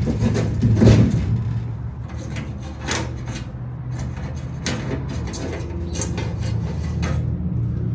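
Wood rubbing and scraping with a few sharp knocks and clicks, over a steady low hum.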